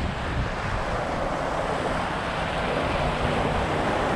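Steady rushing of a small mountain creek.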